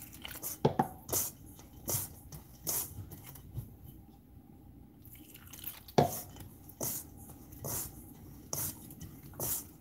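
A hand working flour in a stainless-steel bowl for dumpling dough: short brushing scrapes of fingers through the flour and against the metal, about one a second, with a pause in the middle. The loudest scrape comes about six seconds in.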